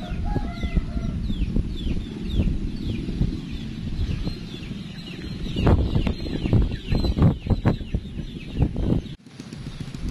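Strong wind buffeting the microphone: a heavy low rumble with many thumps, worst in gusts from about six to nine seconds in, then a sudden dropout. Over it come a string of short, falling, high bird chirps.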